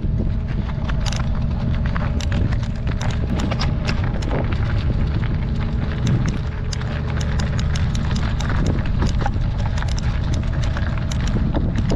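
Loose rocky gravel crunching in a dense run of small clicks and ticks as a mountain bike moves over it, over a steady low rumble of wind on the microphone.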